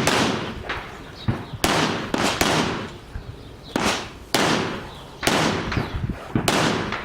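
Pistol shots fired one at a time during an IPSC stage, about seven of them at an uneven pace of roughly one a second, each followed by a short echoing tail.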